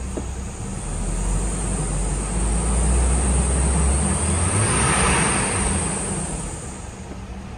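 2006 Hummer H3's 3.5-litre inline-five engine running, heard from the driver's seat. It swells louder through the middle for several seconds and settles back toward a steady idle near the end.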